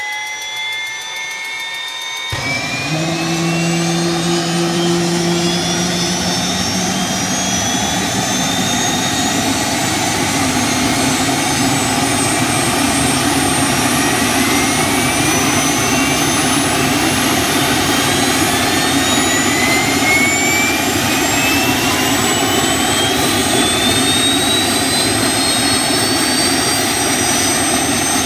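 Bell 206 JetRanger's Allison 250 turbine engine starting. A rising starter whine is joined about two seconds in by a sudden, louder rushing noise as the engine lights off. Several whining tones then climb steadily in pitch as the turbine and main rotor spool up.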